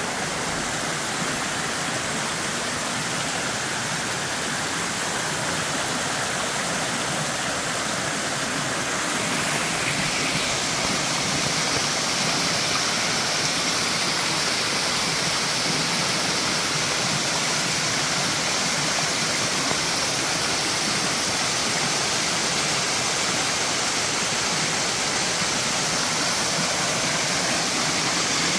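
Waterfall rushing steadily, a continuous roar of falling water that grows a little louder and brighter about ten seconds in.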